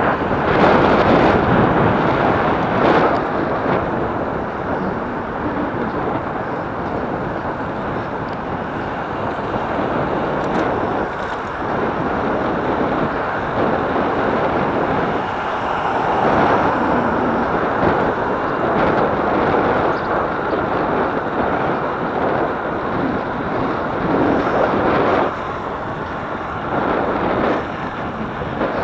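Wind rushing over the microphone of a camera riding on a moving bicycle, a steady, uneven rush with road noise underneath.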